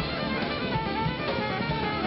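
Alto saxophone playing a lead line of held, slightly bending notes over a live band with a drum kit keeping a steady beat.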